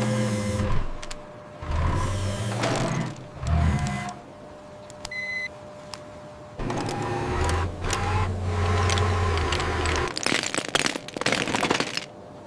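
Truck engine running in several bursts with quieter gaps between them. A single short high beep comes about five seconds in, and a quick run of clicks and rattles comes near the end.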